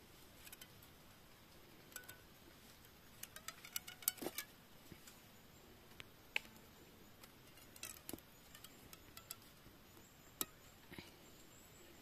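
Faint clicks, creaks and rustles of green plant strips being bent, threaded and tied by hand, with a quick run of clicks about four seconds in and single sharp clicks later.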